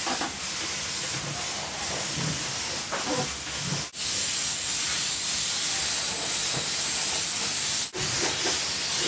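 Compressed-air touch-up spray gun spraying etch primer: a steady hiss, broken by two brief pauses about four and eight seconds in.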